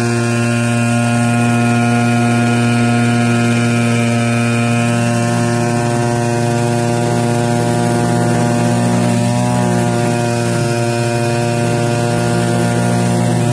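Brush cutter engine running at steady high speed while its nylon trimmer line, held in a head made from strips of old tyre rubber, cuts grass. The pitch wavers slightly near the middle as the line meets the grass.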